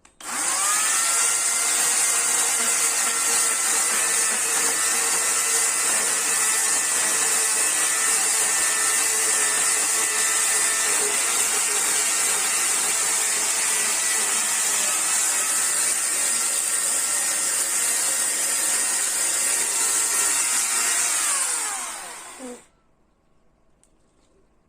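Chainsaw running steadily for about 22 seconds: it spins up quickly at the start, holds an even pitch, then winds down with a falling pitch and stops.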